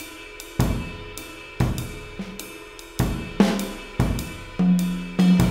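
A jazz drum kit from a drum virtual instrument, playing cymbals, hi-hat, snare and kick in a loose, uneven rhythm within a jazz trio mix. It is panned to the right and has soft room ambience.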